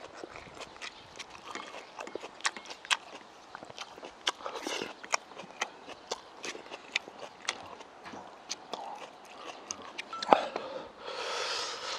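Close-miked eating: wooden chopsticks clicking and scraping on a ceramic plate as the last of the spicy chewy noodles (jjolmyeon) is gathered up, with chewing and mouth clicks. Near the end comes a sharp knock, the loudest sound, then about a second of hissing noise.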